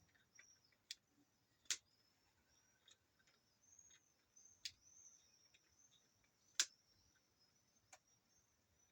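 Scattered sharp clicks and taps, about half a dozen at irregular intervals with two louder ones, as of small plastic parts and a tool being handled, over a faint high-pitched warbling in the background.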